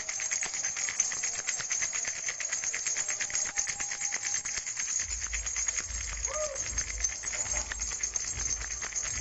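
Plastic flower-shaped baby rattle shaken quickly and steadily, its beads clicking in a fast, even patter.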